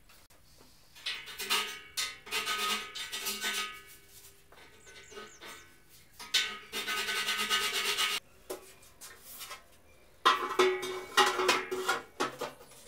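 Sheet metal clattering, scraping and ringing against a steel frame as an electrical cabinet is knocked and pushed into place, in three spells of activity with short pauses between.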